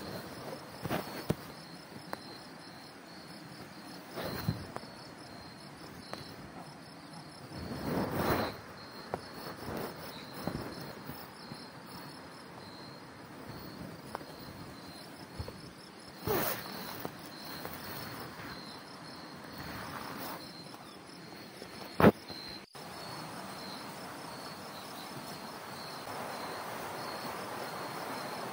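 Crickets chirping in a steady, evenly pulsing trill, with scattered soft knocks and rustles and one sharp click about three-quarters of the way through.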